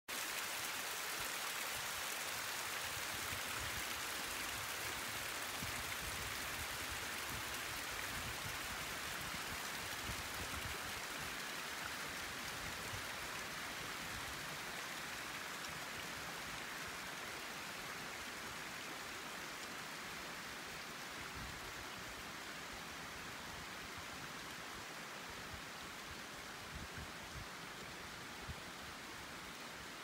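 Steady, even rushing noise of open mountain air, with an unsteady low rumble beneath it, slowly growing fainter.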